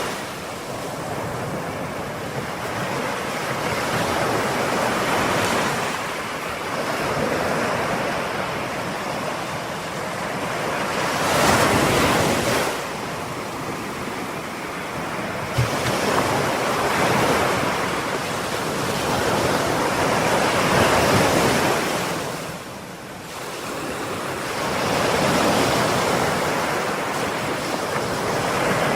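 Ocean waves breaking and washing on the shore, surging and receding every few seconds, with the loudest swells about a third and two thirds of the way through.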